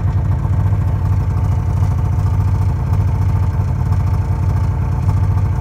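Snowmobile engine running steadily at idle, a low, even pulsing with no revving.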